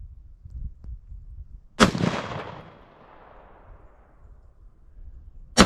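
Two rifle shots from a first-generation .308 semi-automatic rifle, fired a little under four seconds apart. Each crack is followed by a long, fading echo.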